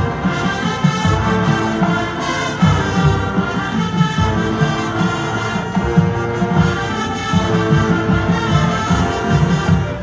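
High school marching band playing its field show: sustained brass chords over a steady drum beat.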